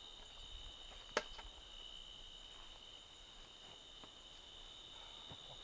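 Steady chorus of crickets, a continuous high-pitched chirring, with one sharp click about a second in.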